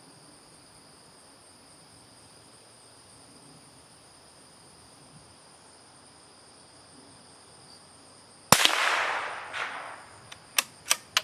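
Steady insect trilling, then a single .22 LR shot from a CZ 452 American bolt-action rifle firing a CCI Mini-Mag 36-grain hollow point: one sharp crack with an echo dying away over about a second. A few short sharp clicks follow near the end.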